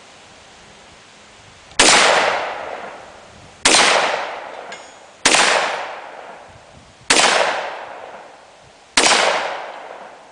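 TriStar Viper G2 Sport 12-gauge semi-automatic shotgun fired five times at a steady pace, about one shot every two seconds, each report trailing off over a second or so.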